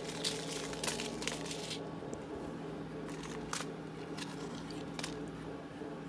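Dried chile peppers crackling and crinkling as a hand handles them and presses them into the pot of broth: a cluster of short crinkles in the first two seconds and two more later. A steady low hum runs underneath.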